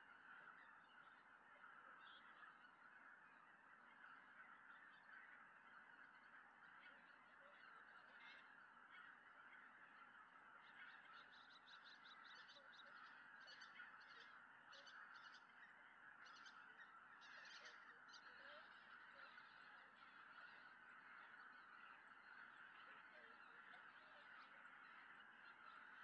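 A faint, continuous chorus of many greater white-fronted geese calling in flight, a steady babble of high yelping honks, with sharper calls standing out in the middle.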